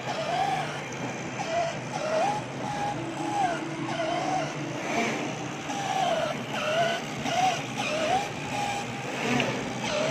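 CNC fabric cutting machine's drive motors whining as the cutting head moves, the pitch gliding up and down about twice a second, over a steady low hum.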